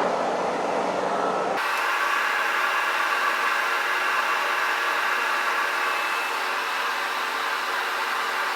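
Kearney & Trecker horizontal milling machine running, its shell mill cutting a steel counterbore deeper: a steady whirring hiss whose tone shifts abruptly about one and a half seconds in.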